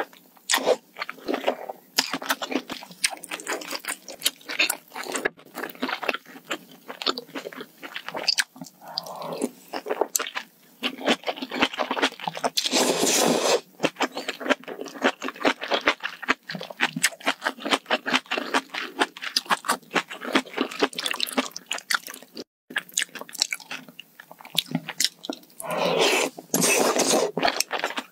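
Close-miked eating of spicy malatang hot pot: steady wet chewing and crunchy bites with many small mouth clicks. Two longer, louder slurps about halfway and near the end as food is drawn in through pursed lips.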